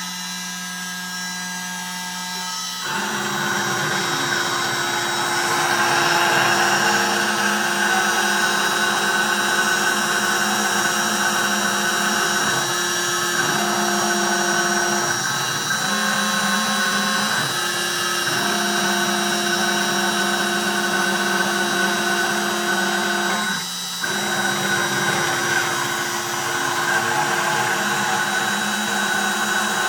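High-speed spindle of a CNC 3040 desktop router, its end mill cutting acrylic sheet: a steady whine of several tones over a rough cutting noise. The sound grows louder about three seconds in and dips briefly a few times, most clearly near the end.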